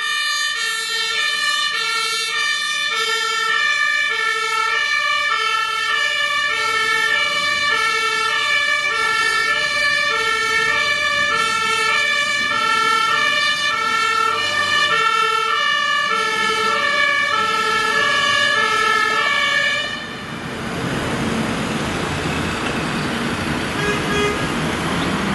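Fire engine's German two-tone siren (Martinshorn), alternating steadily between a high and a low tone, each held about half a second. It cuts off about 20 seconds in.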